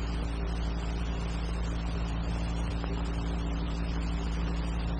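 Steady low hum and hiss of an old film soundtrack, even throughout, with no clicks or shots.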